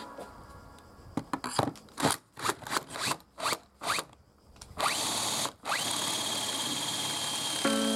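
Power drill boring pocket holes through a pocket-hole jig into plywood: a series of short stop-start bursts, then the motor spins up to a steady high whine, pauses briefly, and runs on. Background music comes back near the end.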